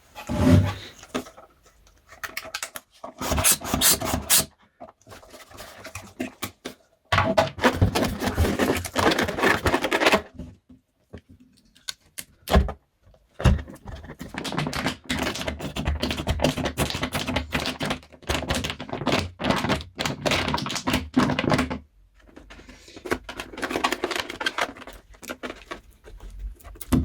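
Plastic bottle being handled, squeezed and shaken to push glue into a balloon stretched over its neck: bursts of rapid crackling and clicking with knocks, stopping and starting several times.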